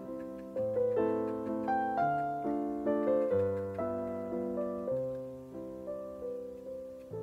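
Soft, slow solo piano background music: gentle chords and a simple melody, each note struck and left to fade.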